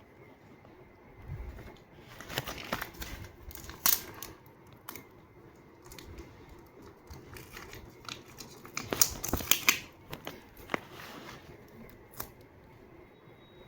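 Scissors snipping paper and paper crinkling and rustling as it is handled, in irregular short clusters, the busiest a couple of seconds in and again about nine seconds in.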